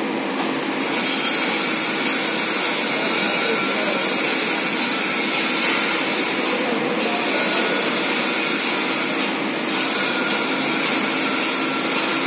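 Inclined hydraulic truck-loading belt conveyor running as its boom lowers: a steady electric motor and pump hum with a high whine, dipping briefly twice.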